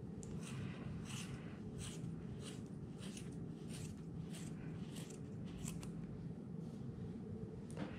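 Scissors snipping through thick angora rabbit wool: a steady run of crisp cuts, about two a second, over a steady low background hum.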